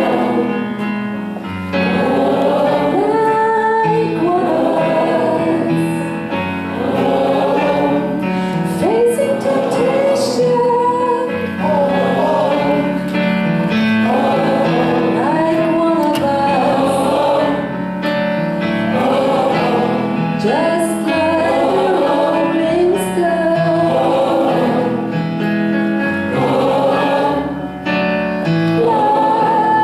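A gospel choir singing a continuous song.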